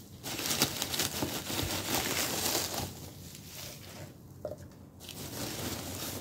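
Foam packing peanuts rustling and crackling as a hand scoops through them, busiest in the first three seconds, with a lull around four seconds in and more rustling near the end.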